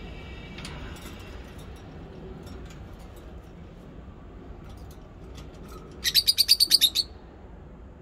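Lovebird giving a quick burst of about ten shrill chirps about six seconds in, lasting about a second, with faint scattered high ticks before it.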